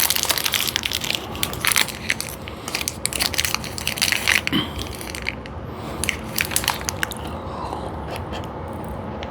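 Close-up crackling and crunching of a chocolate candy bar being bitten into and chewed. The crackles come thick for the first several seconds, then thin out.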